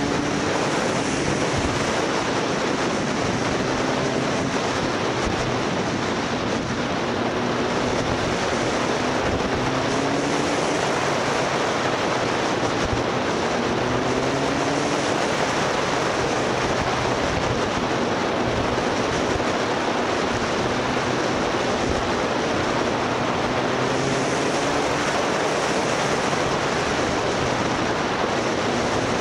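Wind rushing over the microphone of a moving motorcycle, with the engine faintly heard underneath, its pitch rising in short glides and dropping again several times as it accelerates through the gears.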